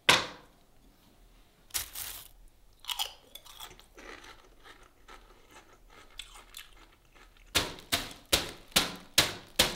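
Crisp potato chips being crunched while chewed: a few sharp crunches early on, then a quick steady run of crunches, about two or three a second, near the end.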